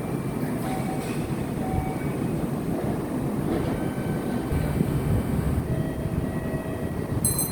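Kintetsu electric commuter train, a 1435-series set coupled to a 2410-series set, running at a station: a steady rumble of wheels and running gear, with a few faint held tones over it.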